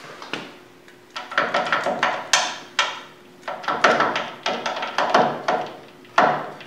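Metal gears of a South Bend lathe's reversing tumbler clicking and clunking as they are handled and worked loose by hand: an irregular run of sharp metallic knocks, some ringing briefly, with the loudest near the end.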